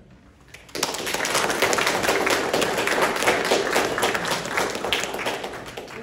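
Audience applauding, starting abruptly about a second in and dying away near the end.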